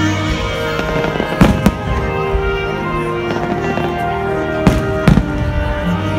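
Fireworks shells bursting overhead with sharp bangs, a close pair about a second and a half in and two more around five seconds in, over music playing steadily throughout.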